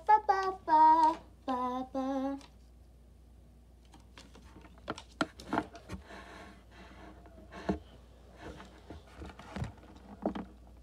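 A voice humming a short tune, then small plastic clicks and light clatter of LEGO pieces being handled, with a piece dropping onto the wooden table.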